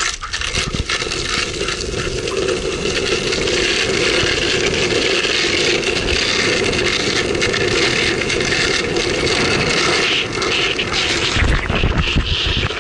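Longboard wheels rolling over pavement, a steady rolling noise, with a few low bumps near the end.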